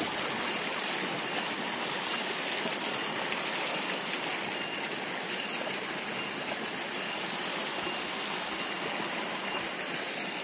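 Spring water gushing steadily from a pipe spout and splashing onto rocks, a continuous rushing that eases slightly near the end.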